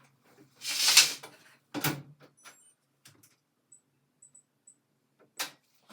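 AEG front-loading washing machine door swung shut with a swish and a latch click, followed by a few faint clicks and four short high beeps from the control panel, and one more click near the end.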